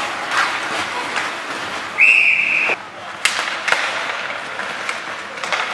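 Referee's whistle blown once in a short, steady, shrill blast of under a second, about two seconds in. Sharp clacks of sticks and puck come before and after it.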